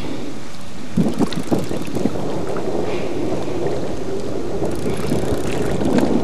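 Wind buffeting the microphone in a steady rumble, with a few sharp clicks and knocks about a second in.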